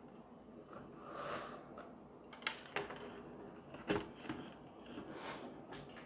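Hard plastic clicks and knocks as a white T5 LED batten light fixture is handled and laid down on a table, the loudest knock about four seconds in, after a soft rustle about a second in.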